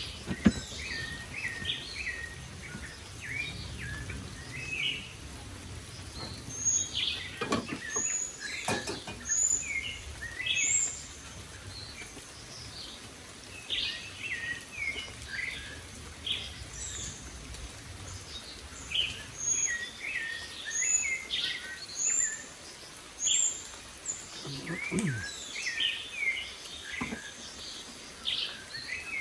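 Birds chirping and calling, with many short overlapping notes and, in two runs, a high note repeated about once a second. A few sharp knocks stand out, the loudest right at the start and around eight seconds in.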